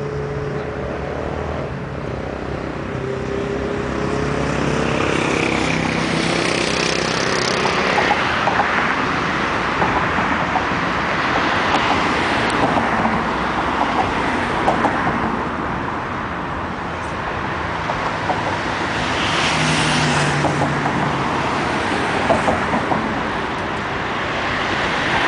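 Road traffic: cars passing one after another, a hiss of tyres and engine hum that swells and fades several times, with an engine hum standing out near the start and again about twenty seconds in.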